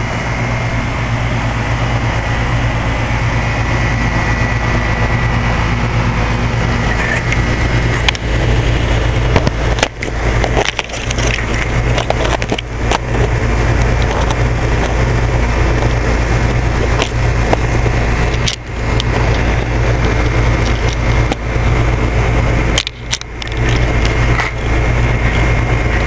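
2004 Goodman 3.5-ton heat pump outdoor unit running steadily in heat mode: the Copeland reciprocating compressor hums low under the steady rush of the condenser fan, with a thin high tone on top. A few brief knocks and dips break in along the way.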